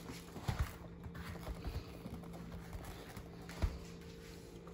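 Handling noise from a replica championship title belt being flipped over onto a padded surface: a few scattered light knocks and rustles, with one sharper knock near the end, over a faint steady hum.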